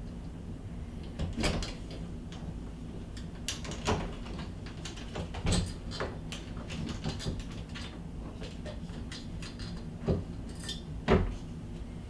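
Hand screwdriver driving the mounting screws of an interior doorknob set: scattered clicks and knocks of the tool and metal knob hardware, with two louder knocks near the end.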